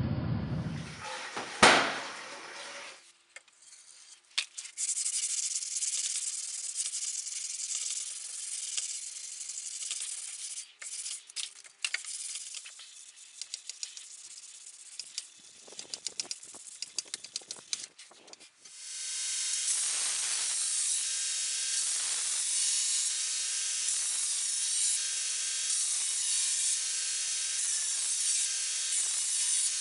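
Abrasive rubbing on the steel blade: irregular scratchy strokes, then from about two-thirds of the way through a louder steady hiss that dips about every two seconds.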